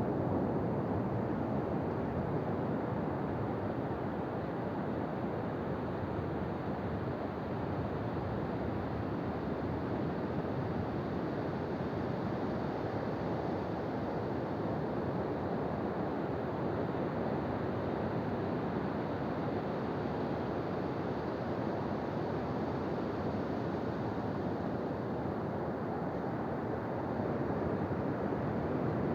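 Ocean surf on a beach: a steady wash of breaking waves, growing slightly louder near the end.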